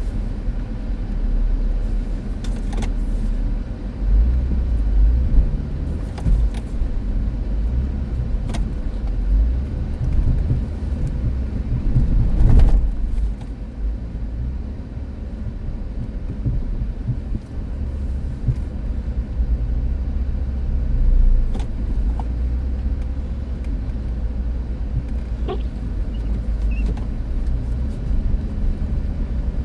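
A 2005 Dodge Caravan minivan driving in blizzard snow: a low, steady vehicle rumble that wavers throughout. A few short knocks sound through it, the loudest about twelve seconds in.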